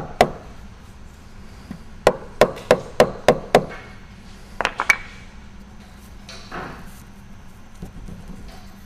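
Hammer striking a wooden block to tap a patch into the honeycomb face of a desiccant rotor: one tap just after the start, a quick run of about six taps between two and three and a half seconds in, and two or three more just before five seconds.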